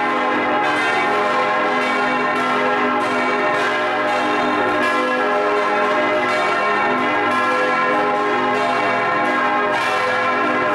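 Full peal of six swinging bronze church bells (tuned A♭, C, E♭, F, G, B♭), heard up close in the belfry, their strokes overlapping in a dense, continuous ringing. It is the ringing-in that calls the parish to Sunday high mass.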